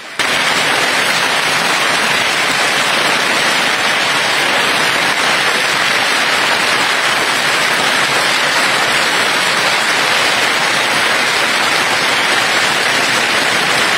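Hail and heavy rain pelting down onto grass and garden furniture in a hailstorm: a loud, steady, dense hiss of countless small hits.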